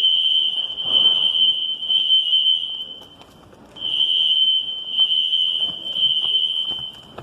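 Building fire alarm sounding a loud, steady, high electronic tone. It holds for about three seconds, breaks off briefly, then sounds again.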